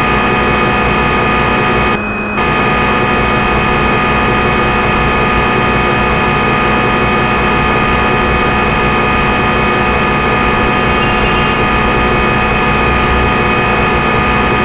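Simulated CNC lathe machining sound from the Swansoft SSCNC simulator: a steady mechanical hum of the spindle running while the tool cuts, with a brief dip about two seconds in.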